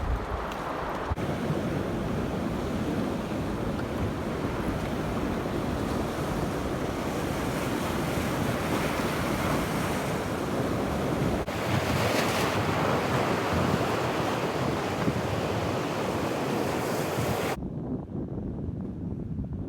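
Sea waves washing against rocks, with wind buffeting the microphone in a steady rush. Near the end the higher part of the sound cuts off suddenly, leaving only a low rumble.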